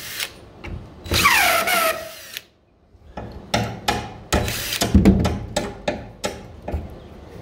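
DeWalt cordless impact driver spinning a rusty bed bolt out of the truck's wooden bed boards. About a second in comes a burst of motor whine that falls in pitch as it stops. After a short pause there is a run of irregular clacks and knocks from the tool and the loose bolt.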